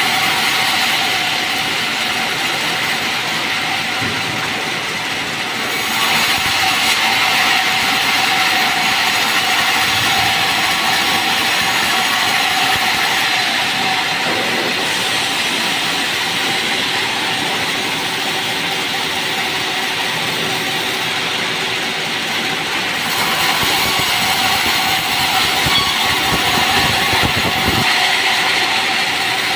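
Sawmill band saw running and ripping merbau hardwood planks: a steady whine with a hiss of the blade in the wood. It grows louder for two stretches of several seconds during the cuts.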